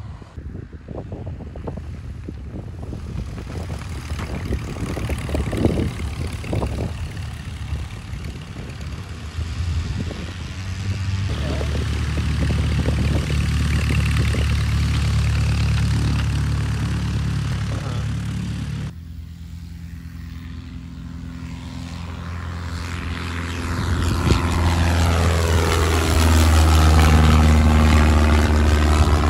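Eagle 150B light aircraft's piston engine and propeller. It starts as an uneven low rumble for the first ten seconds or so, then runs steadily at high power. After a sudden cut it passes low overhead, growing louder toward the end with a sweeping, phasing tone.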